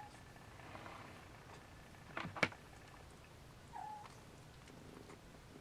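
A nursing litter of Snowshoe kittens with their mother cat: a short mew about four seconds in and faint purring toward the end. Two sharp clicks close together a little before halfway are the loudest sound.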